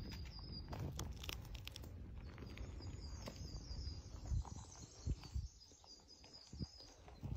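Footsteps crunching through dry leaf litter and twigs, with a few heavier thuds of steps in the second half. A bird chirps rapidly and high-pitched for several seconds in the middle.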